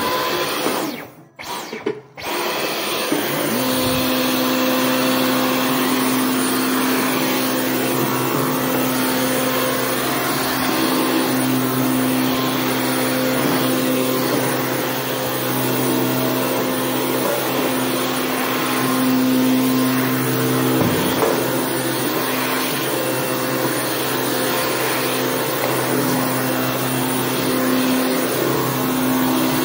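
Stick vacuum cleaner running as its floor head is pushed over a tile floor: a steady motor hum and rush of air. About a second in the sound drops away twice briefly, then the hum settles steady.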